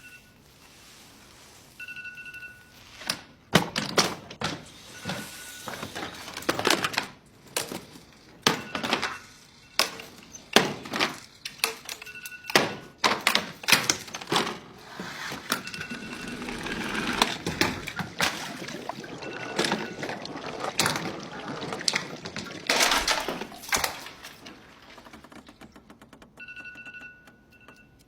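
Electronic alarm clock beeping in short bursts of a single high tone. It is drowned out for long stretches by an irregular run of loud thuds, knocks and crashes, with the beeping still going near the end.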